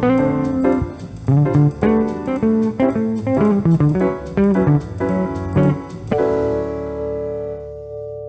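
Jazz guitar playing a quick single-note improvised line over a bass line, then striking a final chord about six seconds in that is held and slowly fades.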